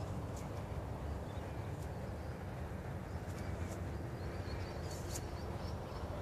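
Outdoor park ambience: a steady low rumble with a few short, faint bird chirps scattered through it.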